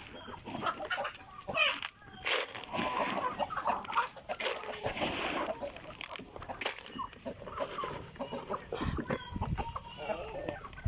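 Free-range chickens clucking, many short overlapping calls from a flock.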